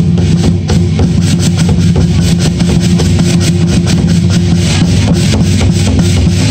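Drums and cymbals accompanying a dragon dance, beating a fast, even rhythm of loud strikes.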